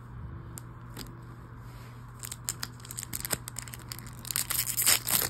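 A trading-card booster pack wrapper being handled and torn open by gloved hands: scattered crinkles from about two seconds in, building to a dense burst of tearing and crackling near the end.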